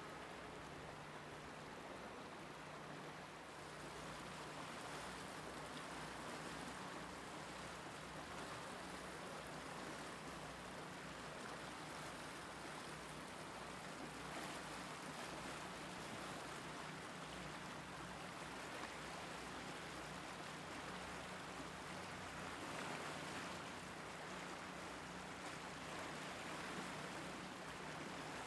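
The flooded DuPage River rushing steadily past: a continuous, even wash of fast-moving floodwater.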